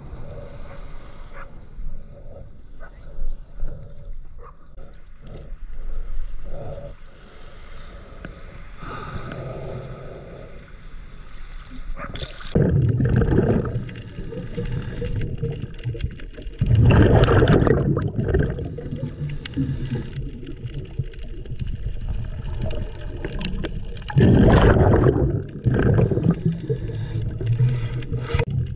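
Underwater scuba breathing through a regulator: three loud gurgling rushes of exhaled bubbles, each lasting a second or two and several seconds apart. Between them is quieter water noise with small knocks as the diver moves through the shallows.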